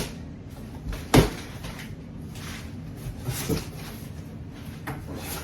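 A few knocks and thuds from a shipping package being handled and opened, the loudest about a second in.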